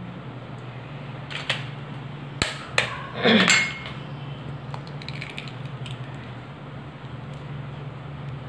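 An egg knocked sharply against a plate a few times and its shell cracked open, the knocks coming about one and a half to three and a half seconds in. A steady low hum runs underneath.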